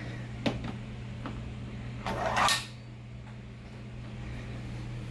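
Handling sounds from a 3D-printed plastic magnet track: a couple of light clicks, then a brief scraping rustle about two seconds in, over a steady low hum.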